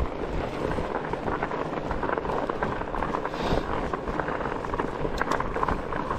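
Wind buffeting the microphone over the rolling rumble of studded 27.5 x 4.5 Gnarwahl fat-bike tyres on mixed snow and ice, with scattered small clicks and crunches.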